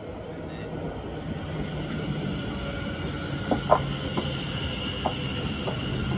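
Greater Anglia Class 720 Aventra electric multiple unit passing close by, a steady low rumble and high whine growing louder. A few sharp clicks of its wheels crossing rail joints come from about three and a half seconds in.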